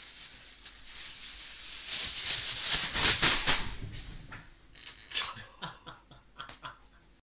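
A thin plastic shopping bag caught over a cat's head, crinkling and rustling as the cat moves in it. The rustling swells to its loudest in the middle, then breaks into a run of separate sharp crackles and knocks.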